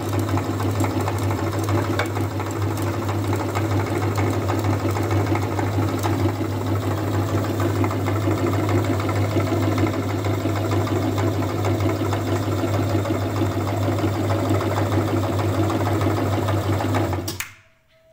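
Electric meat grinder running steadily with a loud hum, its auger forcing Orbeez water beads through the cutting plate. It cuts off suddenly near the end.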